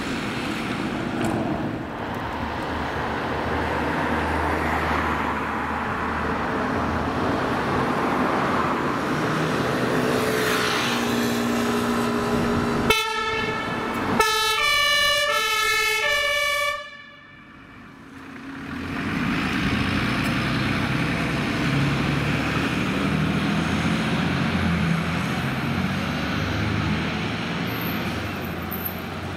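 German two-tone emergency siren sounding on an emergency vehicle moving off, alternating between two pitches for a few seconds before cutting off suddenly. Engine and traffic noise run under it and go on after.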